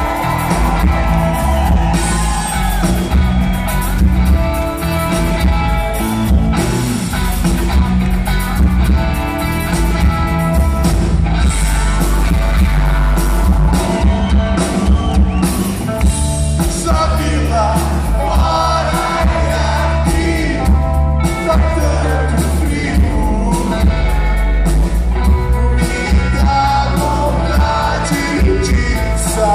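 Live rock band playing: a man singing over electric guitar, bass and drums.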